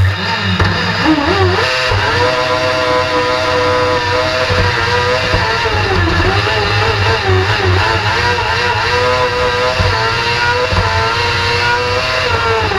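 Kartcross engine launching off the start line and accelerating hard, heard from on board. The revs climb about a second in, then stay high, dipping briefly and picking up again several times as it goes up through the gears.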